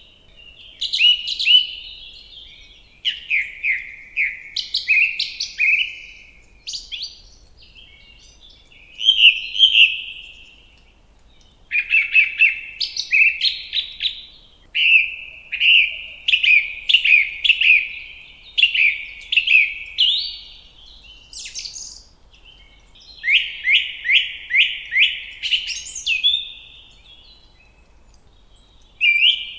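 Birdsong: phrases of quick, repeated falling chirps, one after another with short pauses between.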